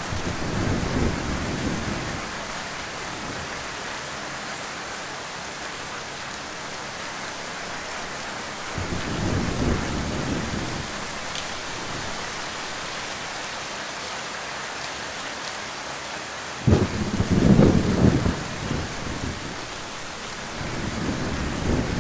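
Heavy rain falling steadily, with low rolls of thunder: one near the start, another about nine seconds in, and a sudden, louder crack and rumble about seventeen seconds in.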